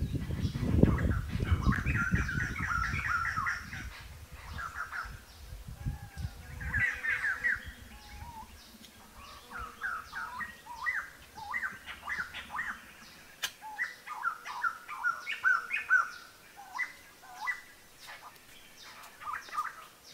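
Birds singing: runs of quick chirping notes that come and go throughout, over a low rumble in the first six seconds.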